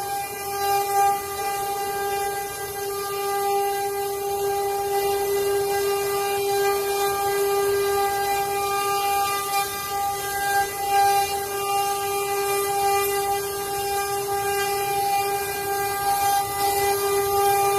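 CNC wood router spindle running at speed, giving off a steady high-pitched whine that stays at one pitch throughout.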